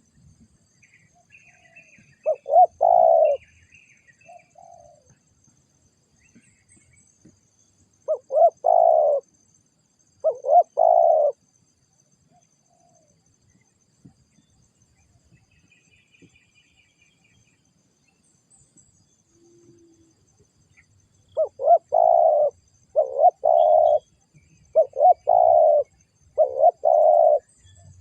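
Spotted doves cooing in short, loud phrases. There are a few phrases in the first half, then a run of about six in quick succession near the end. Faint chirps from smaller birds come in between.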